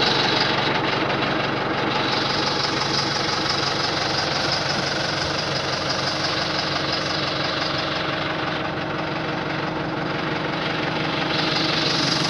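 New Holland T4.75 Powerstar tractor's four-cylinder diesel engine running steadily.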